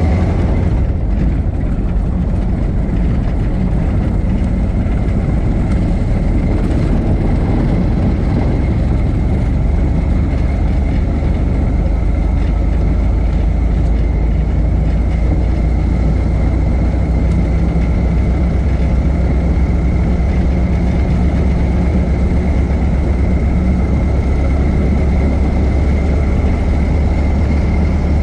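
1926 Ford Model T's four-cylinder engine running steadily, a low even drone with a faint steady high tone above it.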